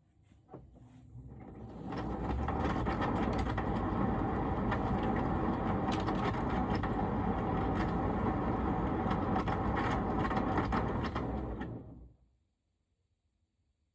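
AEG tumble dryer running, its drum turning with a rumble and many sharp clicks. The owner hears these cracking, squeaking and rumbling noises as abnormal. It starts after a click, builds up over a second or two and cuts off suddenly about twelve seconds in.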